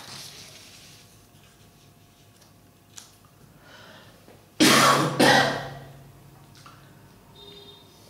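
A man clears his throat in two harsh bursts, about four and a half seconds in. Before that, a sheet of paper slides softly.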